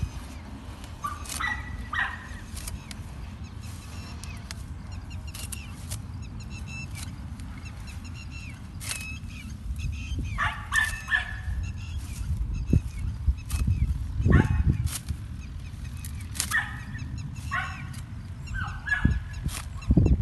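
Green fodder stalks being cut by hand: repeated sharp snips and leaf rustling. A dog barks in short runs, about three times: early on the first second or two, around the middle, and again near the end.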